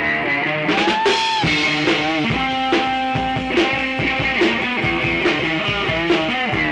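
Rock song with guitar over a steady beat, playing as a soundtrack.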